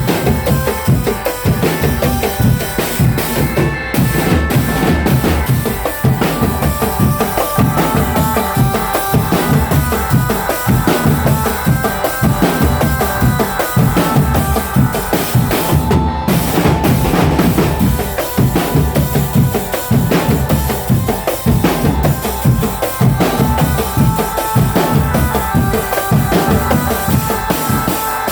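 Marching drum band playing: bass drums and snare drums beating a fast, continuous rhythm, with a few held tones over the drumming.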